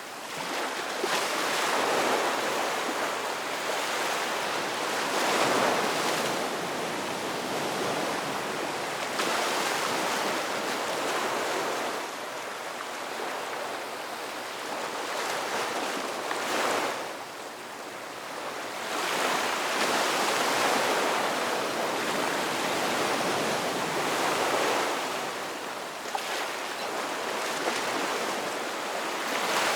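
Ocean surf: a continuous rush of waves that swells and eases every few seconds, with a brief lull a little past halfway.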